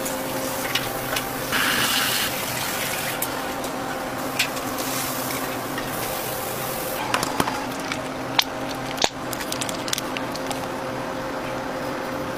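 Kitchen food-prep sounds over a steady hum: a brief rush of noise about two seconds in, then scattered light clicks and knocks from handling food and utensils.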